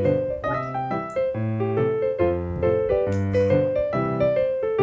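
Background piano music: a melody of separate notes over low bass notes.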